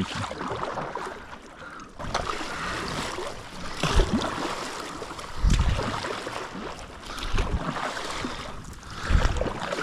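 Water washing and splashing around a fishing kayak under way, with wind noise and several low thuds.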